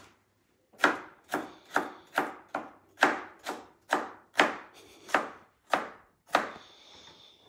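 Kitchen knife chopping bell pepper on a cutting board: about a dozen sharp, even strokes at roughly two a second, stopping near the end.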